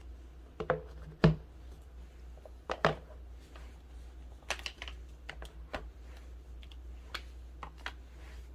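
Scattered light clicks and taps of a new smartphone's box and packaging being handled during unboxing. A sharper knock comes just over a second in, another near three seconds, and a quick run of small clicks around the middle, over a steady low hum.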